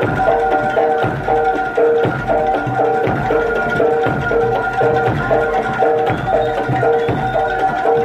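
Live Javanese jaranan music: an even run of pitched gong-chime strokes, about two a second, over drumming, with a held higher note above.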